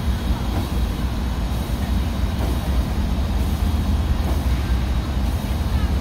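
1912 Polson #2 steam locomotive standing at idle: a steady low rumble with steam hissing.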